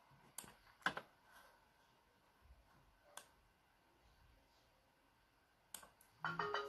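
Near silence of a small room, broken by a few faint, sharp clicks of a smartphone being handled, with a short cluster of louder clicks and a brief pitched sound near the end.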